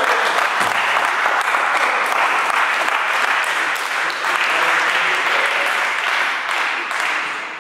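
Spectators clapping after a point in a table tennis match. The applause starts suddenly, holds steady for several seconds and tapers off near the end.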